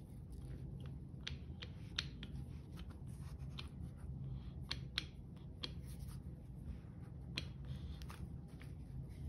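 A steel clutch basket being turned back and forth by hand over a Massey Ferguson 50A transmission clutch pack, its steel and friction discs clicking and scraping irregularly as their teeth work into place. A low steady hum runs underneath.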